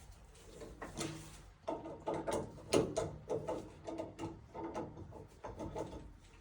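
Wrench tightening a threaded pipe nipple into a gas fitting: a run of uneven metal clicks and scrapes as the jaws grip and the threads turn.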